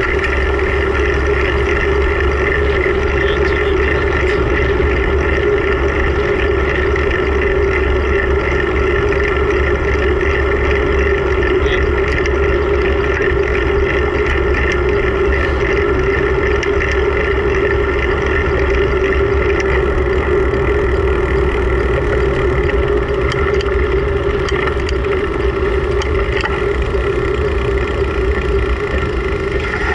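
Steady wind rush on the microphone of a bicycle-mounted camera while riding, with a constant hum running under it.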